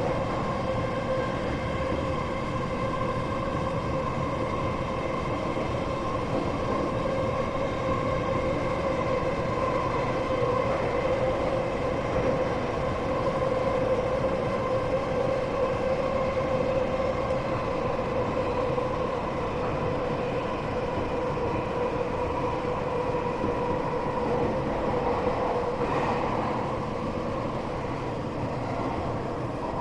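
Tokyo Metro 8000 series train running at steady speed, heard from inside the car: a steady whine over the continuous rumble of wheels on rail.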